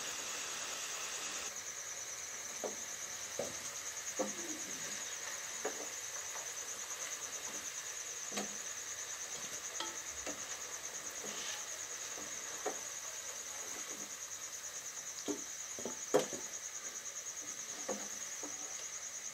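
Metal slotted spoon clinking now and then against a wok and a steel bowl as potato slices are lifted out of hot frying oil, about ten short knocks with the sharpest about 16 seconds in. A steady high-pitched trill runs underneath.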